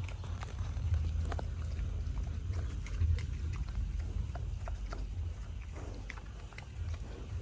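Pigs eating green vegetables: irregular crunching and chomping clicks over a low steady rumble.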